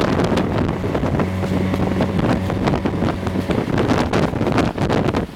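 A motorboat's engine running with a steady hum that fades about three and a half seconds in, under heavy wind buffeting on the microphone and crackling gusts.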